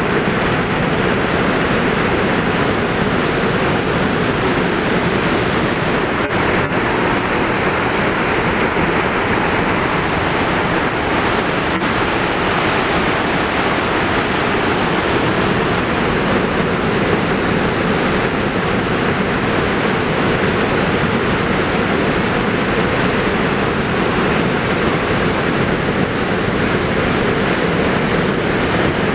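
Water pouring over a wide waterfall: a steady, unbroken rush.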